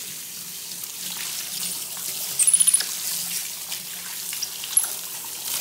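Bathtub faucet running in a steady stream onto a wet capuchin monkey and into the tub, with small splashes. A quick run of short, high squeaks about two and a half seconds in.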